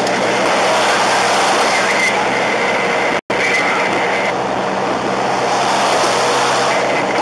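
Steady road noise of a car at motorway speed heard from inside the cabin: tyre and wind noise with a low engine hum. The sound cuts out completely for a split second about three seconds in.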